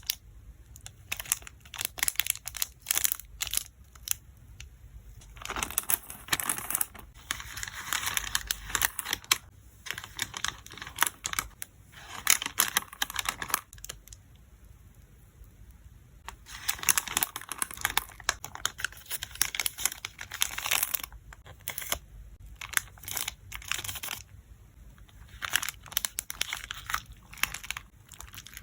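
Plastic sleeves and packaging crinkling and rustling as photocards are packed, in stretches of a few seconds, with scattered sharp taps and clicks between them.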